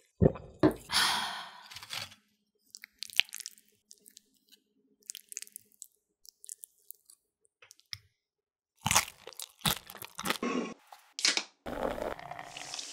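Tortilla chips crunching and a spoon scooping chunky guacamole, in sharp crisp clicks with quieter scraping between. Near the end, beer poured from a can into a glass, foaming with a steady fizz.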